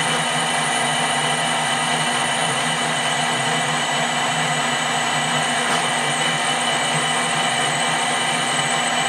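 Metal lathe running steadily, its motor and drive humming with several steady tones.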